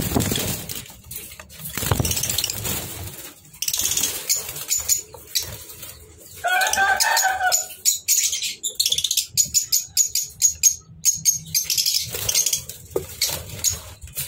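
Small cage birds chirping and fluttering in an aviary, with quick wing flaps and light knocks. There is a rapid run of high chirps in the second half, and one wavering call of about a second near the middle.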